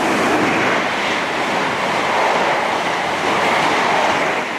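A train passing through a station: a steady rush of wheel-on-rail noise.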